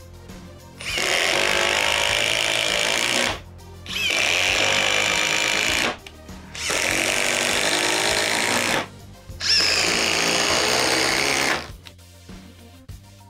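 Cordless impact driver running under load and hammering, in four runs of about two seconds each, with music playing underneath.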